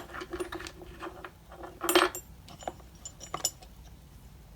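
Metal leatherworking tools clinking and rattling as they are handled and set down, in a series of light clicks with a louder clatter about two seconds in.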